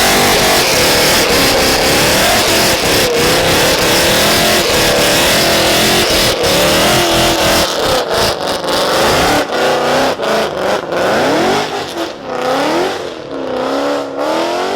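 Mustang's engine revving hard, held high with the pitch wavering. From about eight seconds in it drops and sweeps up and down in repeated revs.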